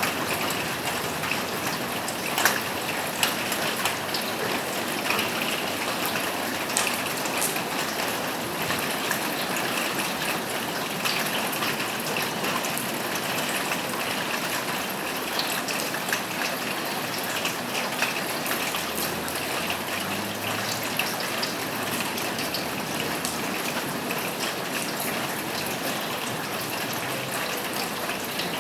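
Steady rain falling on a roof, with sharper drops ticking now and then.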